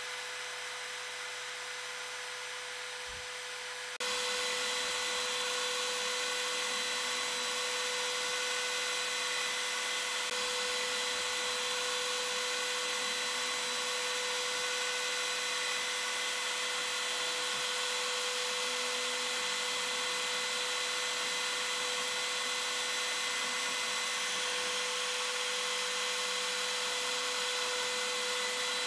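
Makita compact router spindle on a MillRight Carve King 2 CNC, running at full speed with a steady high whine. About four seconds in the sound abruptly turns louder and rougher as the bit carves letters into a pine board.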